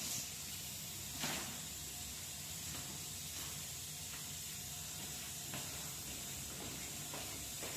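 Steady hiss of falling rain, with a few light taps scattered through it.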